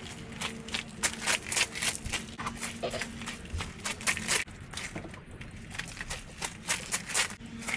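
Irregular crackling, rustling and light clattering of rubbish being handled and cleared out of a car interior, with a faint steady hum underneath.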